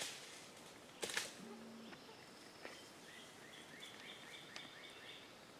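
Brief crackle and rustle of leaves and brush, loudest about a second in, as a camouflaged bicycle is hauled out from its hiding place on the forest floor. Then a bird sings a quick run of repeated short chirps, about four a second, for a couple of seconds.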